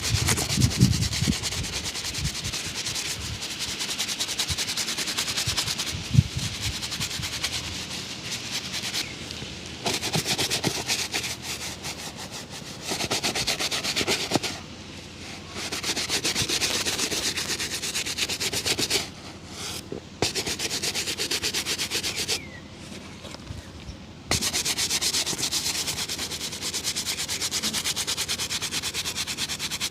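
Rapid rubbing strokes on a shoe during a shoe shine, coming in bouts of a few seconds with short pauses between them. There are a few soft knocks near the start.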